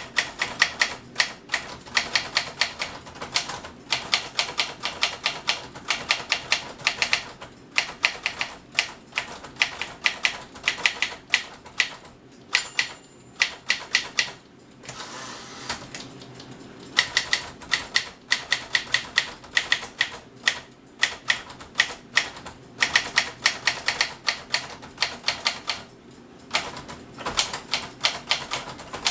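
Smith-Corona Corsair Deluxe manual typewriter being typed on: rapid runs of sharp key strikes, several a second, broken by short pauses. About halfway through there is a stretch of smooth rasping with no key strikes.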